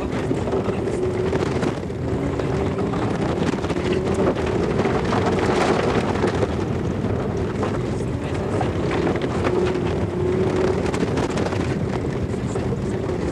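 Audi 80 quattro rally car's engine running at speed, heard from inside the cabin, with road and wind noise. Many small knocks run throughout.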